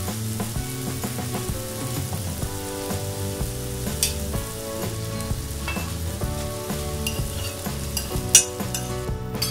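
Spice paste sizzling in oil in an aluminium kadai, with a steady hiss, a few clicks from the spatula and a sharp knock against the pan about eight seconds in as shrimp are tipped in from a plate. Soft background music plays underneath.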